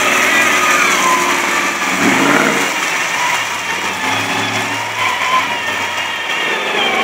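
Lifted mud truck on big mud tyres, its engine running with the revs rising and falling as it drives.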